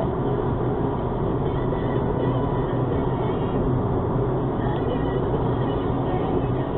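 Steady road and engine noise inside a car's cabin cruising at motorway speed: a constant low hum under an even rush of tyre noise.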